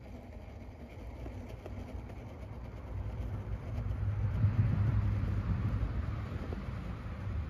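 1/10 Axial Capra rock crawler's Hobbywing Fusion SE brushless motor and geared drivetrain working as it crawls slowly over rock, swelling about three seconds in and easing off again, over a low rumble.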